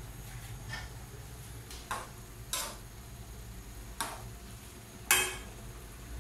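Metal cookware clanking: a ladle and pot lid knocking against stainless pots, about five separate clanks roughly a second apart, the loudest near the end ringing briefly, over a low steady hum.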